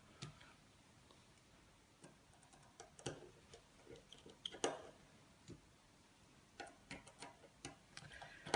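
Faint, scattered small clicks and taps of a precision screwdriver on the tiny screws and metal shield plate inside an iPhone 5, as the screws are undone. The sharpest click comes a little past the middle, with a quicker run of light ticks near the end.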